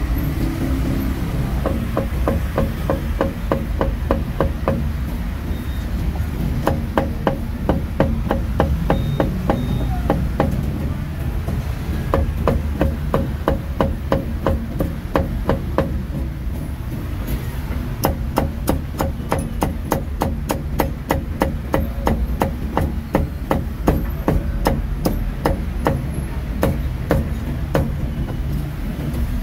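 Meat cleaver chopping roast meat on a chopping block: rapid, even strokes, several a second, in long runs with short pauses. Steady street traffic hums underneath.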